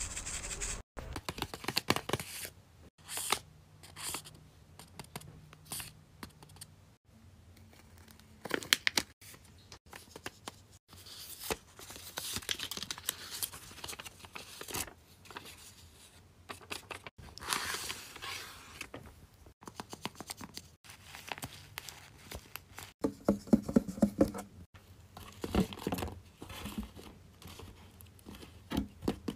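Hands handling homemade paper crafts: paper rustling and crinkling, with light taps and scrapes coming one after another at irregular intervals.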